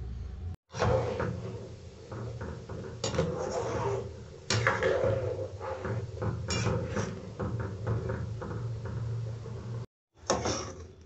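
Jackfruit seeds in water at a rolling boil in a steel pot, bubbling and crackling with scattered knocks, over a low steady hum. Near the end a steel slotted spoon clatters against the pot.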